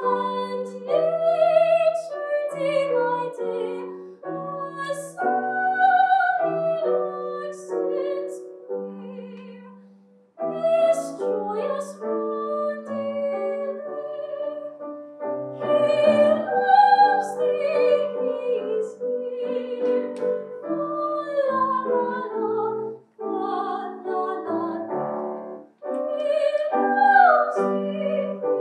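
A woman singing in classical style with a wide vibrato, accompanied by piano, in phrases separated by short breaths.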